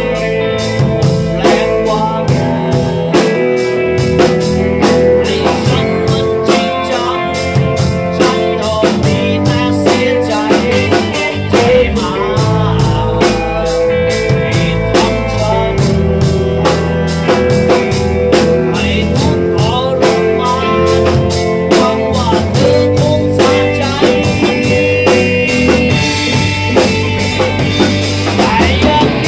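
A band playing live: a man singing into a microphone over guitar and a drum kit, in a bluesy rock style.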